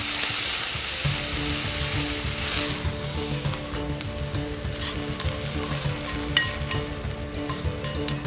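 Food sizzling and frying in a pan, with stirring and a few light clicks of a utensil against the pan. The sizzle is loudest in the first few seconds, then eases.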